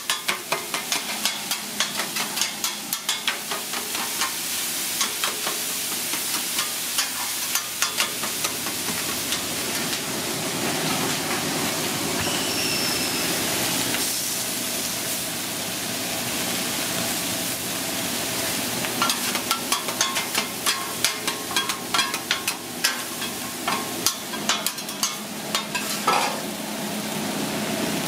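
Chopped ribeye sizzling on a flat-top griddle while steel spatulas chop and scrape it, making rapid clicks and taps of metal on the steel plate. The clicking is thick at the start and again late on, with a stretch of steadier sizzle in between.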